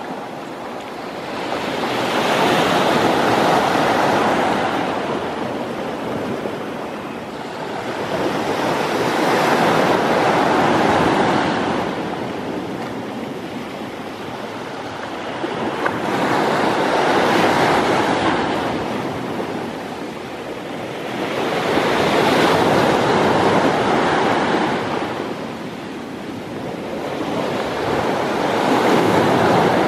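Small waves breaking and washing up a pebble-strewn sand beach, the surf swelling and fading about every six seconds, five times.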